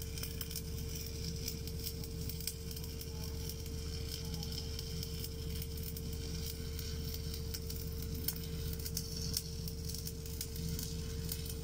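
Crackling and sizzling of stick (SMAW) arc welding, irregular and continuous, over a steady machine hum with one constant tone.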